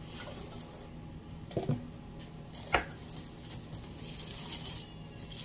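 Plastic film and a cardboard box rustling as a wrapped toothbrush holder and toothpaste dispenser unit is handled out of its packaging. There is a soft thump about a second and a half in, and a sharp knock just under three seconds in, the loudest moment.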